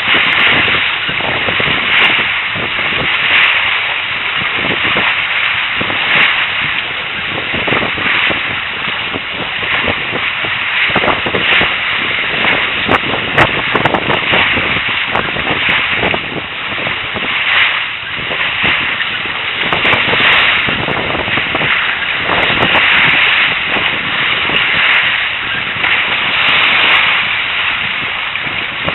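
Sea water rushing past and splashing up through the trampoline netting of a Tiki 21 catamaran sailing fast, in a steady surging wash with frequent splashes, and wind buffeting the microphone.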